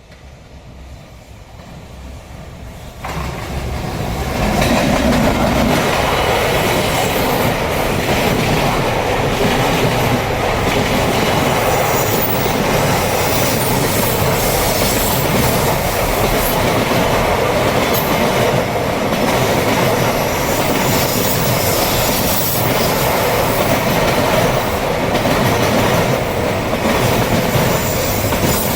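Freight train passing close by: it builds up, comes in loud about three seconds in, then a steady rumble of passing wagons with the clickety-clack of their wheels on the rails.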